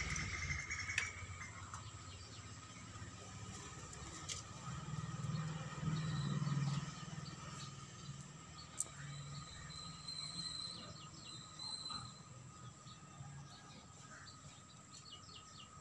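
Birds chirping in the background, over two steady high tones, with scattered faint ticks and a low rumble about five to seven seconds in.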